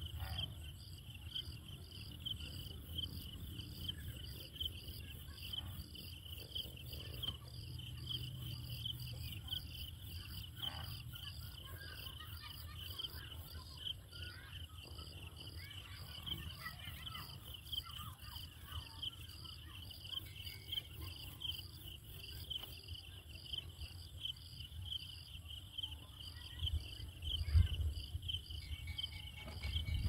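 Insects chirping steadily: a high, evenly pulsed trill that runs on without a break, over a low rumble, with a few louder low thumps near the end.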